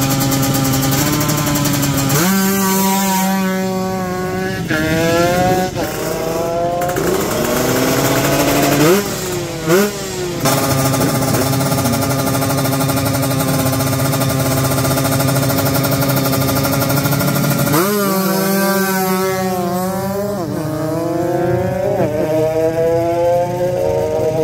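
Two-stroke Kawasaki Ninja 150 drag bike engine idling, then blipped and revved hard in repeated rising and falling sweeps, with a steadier stretch in the middle before another run of revs near the end.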